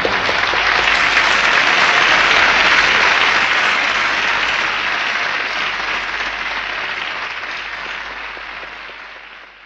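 Audience applauding as the song ends, the clapping swelling over the first two seconds, then slowly dying away before it cuts off.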